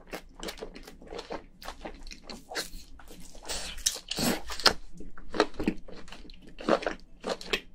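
Wet mouth sounds of a person chewing a mouthful of boiled crayfish meat: repeated smacks and clicks, a few each second.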